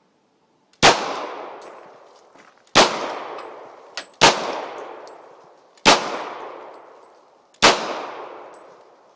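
Five pistol shots fired at a steady pace, about one every one and a half to two seconds, each followed by a long echoing decay.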